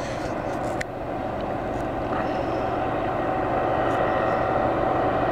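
Distant diesel freight train approaching, heard as a steady drone that grows slowly louder, with a couple of faint clicks about a second in.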